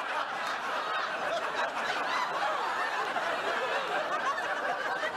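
Sitcom studio audience laughing together after a punchline: many overlapping chuckles, steady in level.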